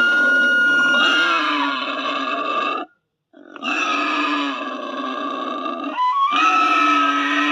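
Troll creature sound effect: rough grunting and growling vocalizing with a steady high tone held over it. It breaks off for about half a second near the middle, then resumes.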